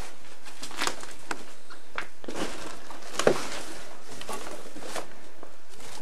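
Steady hiss under scattered soft rustles and light knocks, with one louder knock a little over three seconds in: the handling and footsteps of people moving through a debris-strewn room.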